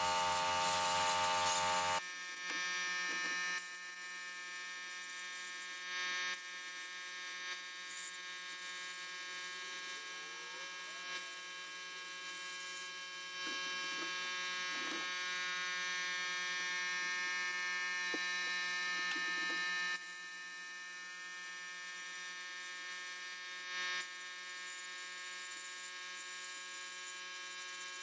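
Abrasive blast cabinet running as a rusty hand-plane part is blasted: a steady buzzing hum, louder in a few stretches, the longest from about 13 to 20 seconds in.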